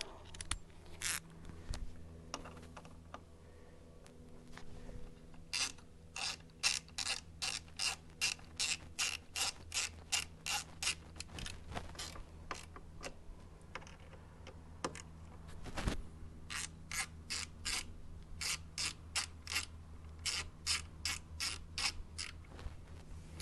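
Hand ratchet clicking in long runs of even strokes, two to three clicks a second, as T27 Torx bolts are driven in. There are two main runs, the first starting about a quarter of the way in, the second about two-thirds in.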